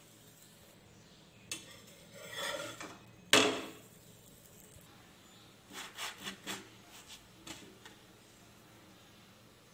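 Kitchenware clattering against an iron tawa: a scrape, then one sharp knock about three seconds in with a short ring, followed by a quick run of lighter taps and scrapes.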